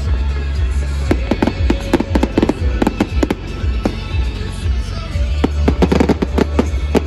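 Fireworks going off in rapid succession, many sharp bangs and crackles overlapping, over loud music with a steady bass.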